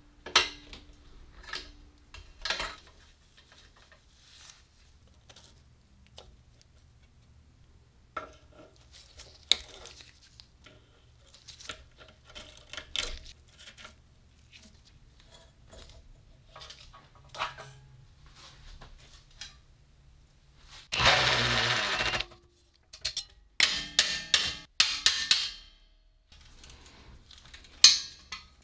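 Steel wrenches clinking and scraping on rusty bolts while an old air compressor's motor mount is unbolted, with scattered sharp metal clicks. Near the end comes a louder burst of noise about a second long, followed by a quick run of clicks.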